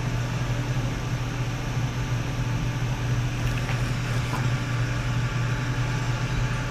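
The 6500 RPM cooling fan of a Bitaxe SupraHex Bitcoin miner running steadily: a constant whir over a low hum.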